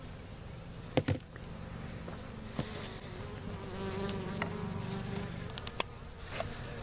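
Honey bees buzzing steadily around an opened hive, with two sharp knocks about a second in.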